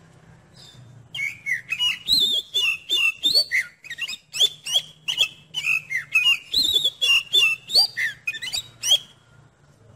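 Oriental magpie-robin (kacer) singing a long, fast run of varied whistled notes that slide up and down in pitch. The song starts about a second in and stops about a second before the end.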